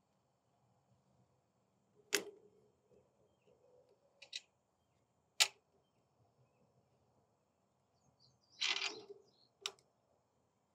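Sparse sharp clicks and light clinks of small valve parts being picked out of the brass manifold of a AAA triplex pressure washer pump: about five separate clicks, with a short rattling cluster near the end.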